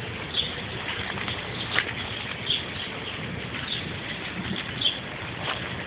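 Short, high bird chirps, about one a second, over a steady rushing background noise.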